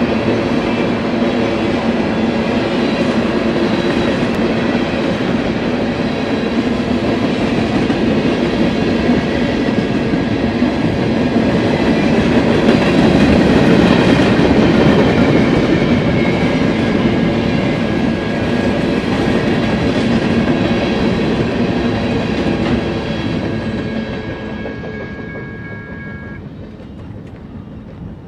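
Freight train of tank cars and covered hopper cars rolling past: a steady rumble and clatter of steel wheels on the rails, loudest about halfway and fading as the last cars go by near the end. A steady high ringing tone runs under it and cuts off shortly before the end.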